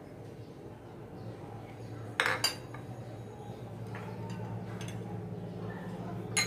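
Glass bowls clinking as they are handled and set down, with a cluster of knocks about two seconds in and another near the end, over a low steady hum.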